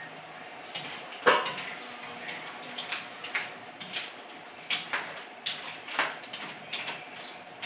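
Metal cookware clanking: a utensil knocking against a pan on a gas stove while stirring, in a series of sharp clanks, the loudest a little over a second in with a brief ring.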